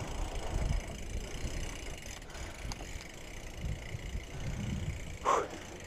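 BMX bike rolling over rubber playground tiles: a low, uneven rumble, with a short burst of sound about five seconds in.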